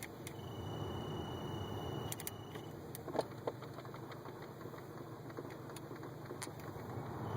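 Heater blower motor of a Volkswagen Golf Mk5 running with a steady hum, a few light clicks and a couple of brief tones a little over three seconds in. The owner reports this motor whistling.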